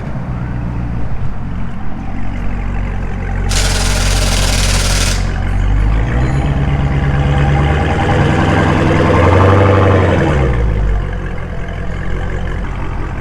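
Tire-shop equipment with a steady low hum. About three and a half seconds in comes a burst of compressed-air hiss lasting under two seconds, then a machine's motor winds up in pitch, runs and winds back down.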